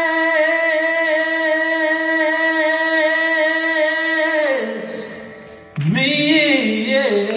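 Live rock-blues vocal: a singer holds one long note with a gentle vibrato, which slides down and fades about four and a half seconds in. Just under six seconds in the music comes back loudly, with bending, wavering notes.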